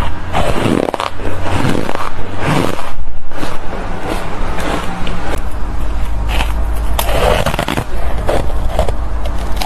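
Ice chunks coated in matcha powder being bitten and chewed close to the microphone: loud, irregular crunching, with a steady low hum underneath.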